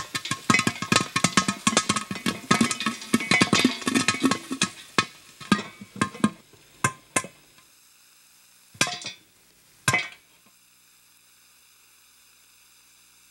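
Popcorn popping: a dense, rapid run of sharp pops that thins out over about six seconds to a few scattered single pops, the last about ten seconds in.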